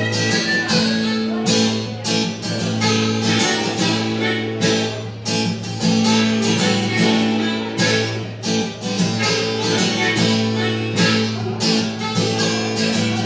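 Acoustic guitar strummed live through a small PA during the instrumental break of a country-blues song, with long held notes sounding over the chords.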